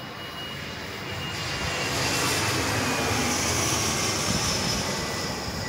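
Twin rear-engined regional jet flying low overhead with its landing gear down. The engine noise swells over the first couple of seconds and then holds, and a whine in it slowly falls in pitch.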